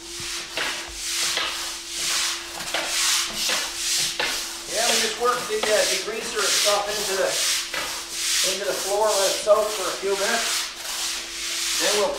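Stiff push broom scrubbing soapy water into a concrete floor, in quick back-and-forth strokes of about two a second.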